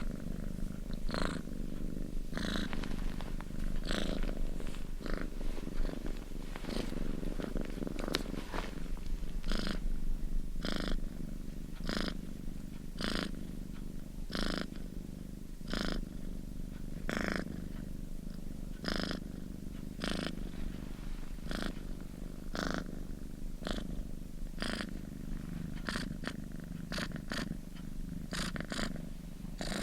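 Domestic cat purring steadily and close up, a continuous low rumble with a soft breathy rasp about once a second.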